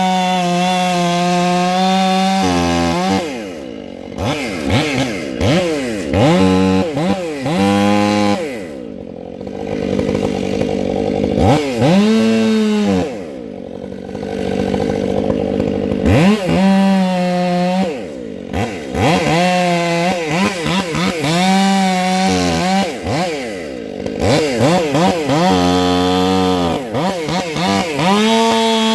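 Two-stroke chainsaw running near full throttle while cutting into a hollow, rotten tree, its engine speed dropping and climbing back up again and again.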